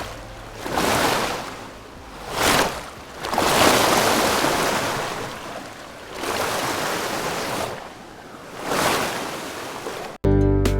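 Repeated swells of rushing noise, each rising and fading over a second or two, like surf breaking; near the end it cuts off and strummed acoustic guitar music starts.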